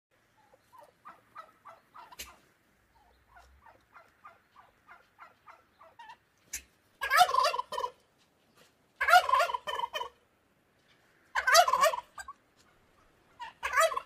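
Turkey calling: two runs of short, quieter notes over the first six seconds, then four loud gobbles about two seconds apart.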